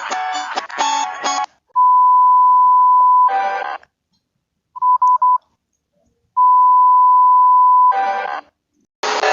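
Electronic emergency-alert-style tones: a steady beep held for about a second and a half and ending in a short harsh burst, then three quick beeps, then the same long tone and burst again, with silent gaps between. Plucked guitar music cuts off just before the tones begin.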